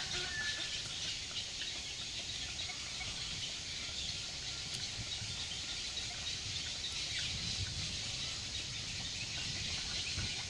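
Outdoor ambience of insects and birds calling in a steady, dense chorus, over a low rumble; a brief bird whistle sounds right at the start.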